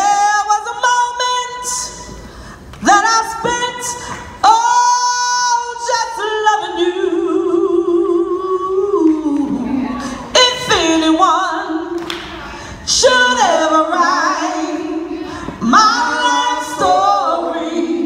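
A woman singing a slow soul ballad, amplified through a microphone. She holds long notes with vibrato and sings quick ornamented runs between them.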